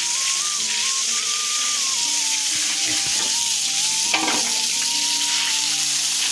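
Water jet from a hose spraying onto a concrete pig-pen floor, a steady splashing hiss, with one sharp knock about four seconds in.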